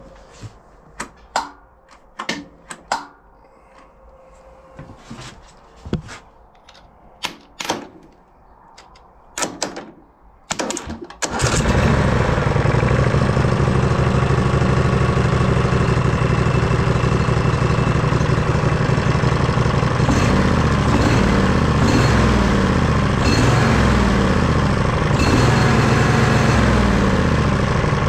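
Scattered light clicks and knocks, then about ten seconds in a brief crank as a Briggs & Stratton Vanguard 16 HP V-twin lawn tractor engine catches, after which it runs steadily and loudly. The tractor has a starting fault: the key alone only clicks the new starter solenoid, and the engine runs only when the solenoid's two terminals are crossed.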